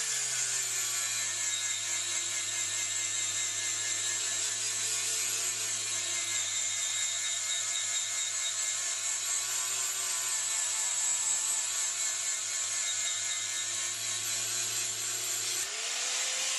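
Angle grinder with an abrasive disc grinding mill scale off a steel flat bar, a steady harsh grinding hiss over the motor's hum. The motor's pitch drops as the disc bites into the steel and stays low under load. Near the end it rises back to free-running speed as the grinder is lifted off the bar.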